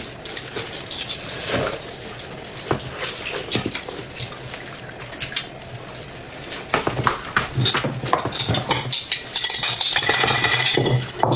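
Close-miked eating: chewing and mouth sounds with utensils clicking against dishes, a run of short clicks that grows busier and louder in the second half.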